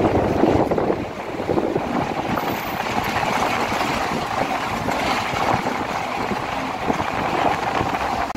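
Jeep driving over a rough, rocky mountain road, heard from inside the cab: steady engine and road noise with wind.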